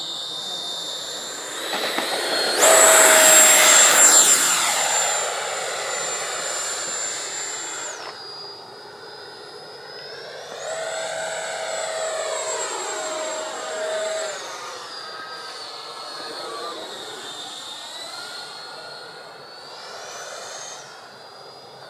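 The 80 mm electric ducted fan of an FMS F-16 RC jet whining in flight, its pitch stepping up and down several times with throttle changes. It is loudest about three seconds in, sweeping past with a rushing noise.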